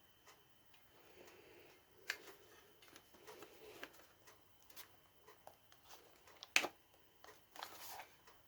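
Scattered small clicks, taps and light rustling of objects being handled at close range, with one sharper click about two-thirds of the way through.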